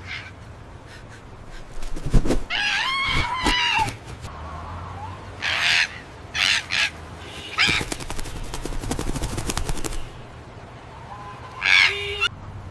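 Parrot squawking in several short, harsh calls, with a run of rapid clicks in the middle.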